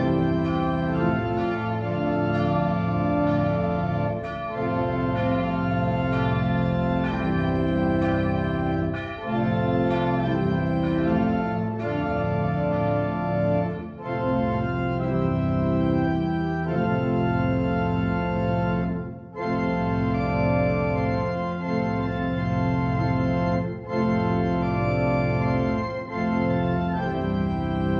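Church pipe organ playing a slow piece in sustained chords, with short breaks between phrases.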